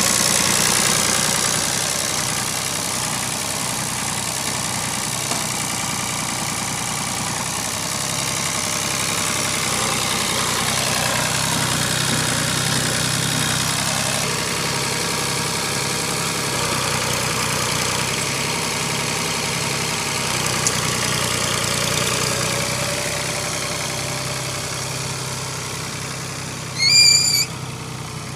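New Holland (Fiat) 480 Special tractor's three-cylinder diesel engine running steadily while the tractor drives and works. Near the end come a couple of short high chirps.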